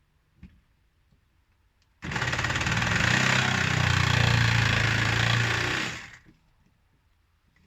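Handheld electric power tool starting abruptly about two seconds in and running steadily for about four seconds while cutting a plumbing fitting in half, then winding down.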